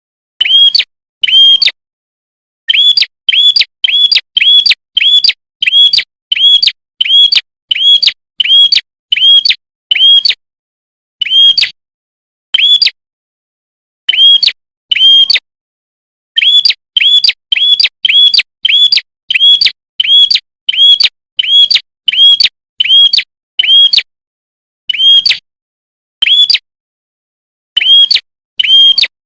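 Red-headed prenjak calling: a long series of short, identical sharp chirps, each a quick arched note, about two a second, in runs broken by brief pauses.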